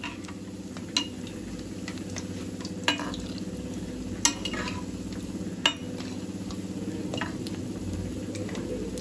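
Gulgule batter balls deep-frying in hot oil in a metal kadhai, a steady bubbling sizzle over a low hum. A slotted spoon clinks against the pan about five times as the fritters are stirred.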